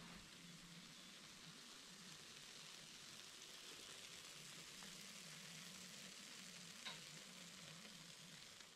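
Faint, steady sizzling hiss from a baking tray of pastry pinwheels fresh from a hot oven, with one small click near the end.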